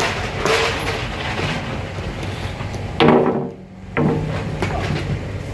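Mechanics' tools and metal parts clattering during rally-car gearbox work, over a steady background hum. About three seconds in there is one brief, loud mechanical burst, followed by a short dip in level.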